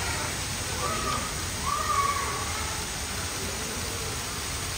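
Steady hubbub of a busy shop, with faint distant voices and a brief louder pitched sound about two seconds in.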